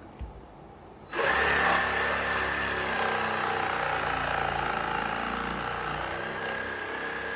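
Electric power saw starting up about a second in and running steadily as it cuts through 2x4 wall studs.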